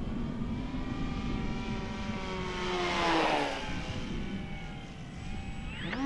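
Electric motor and propeller of an FMS 2000mm de Havilland Beaver RC plane flying overhead: a steady whine that swells and drops in pitch as it passes about halfway through, then rises quickly to a stronger, higher tone near the end as the throttle is opened. Wind rumbles on the microphone underneath.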